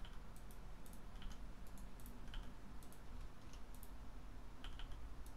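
Computer mouse and keyboard clicks, short and irregular, about two or three a second, over a low steady hum.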